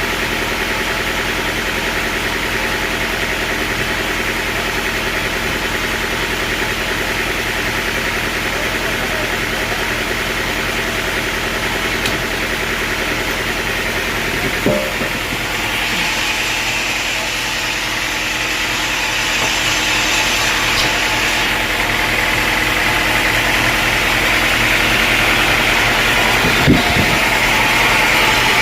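Sawmill engine running steadily, with a single knock about halfway through and a hissing noise building up over the second half.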